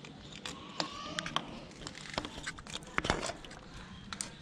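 Handling noise: scattered light clicks and rustling from hands working at the motorcycle's throttle body, with a sharper tap about three seconds in.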